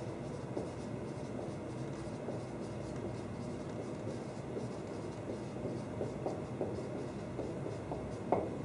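Dry-erase marker squeaking and rubbing on a whiteboard as words are written, ending with a sharp tap of the marker a little before the end. A steady background hum runs underneath.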